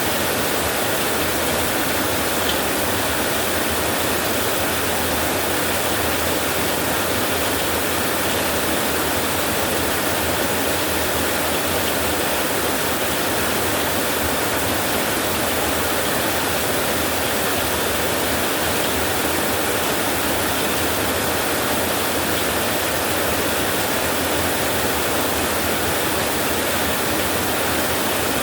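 Heavy rain falling steadily on a tin roof, a dense, even hiss without pause or thunder.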